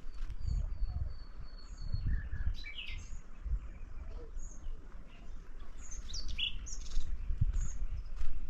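Small birds chirping outdoors: short, scattered high calls, with one thin whistled note held for about a second and a half near the start. Uneven low rumbling noise runs underneath.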